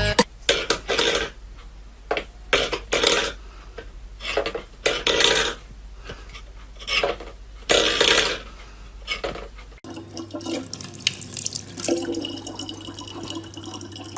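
Water splashing and sloshing in about a dozen short, irregular bursts. After a cut, a steadier wash of running water with a low hum.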